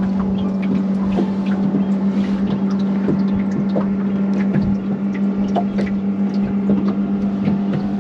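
A boat's motor running steadily with an unchanging hum, with light scattered clicks over it.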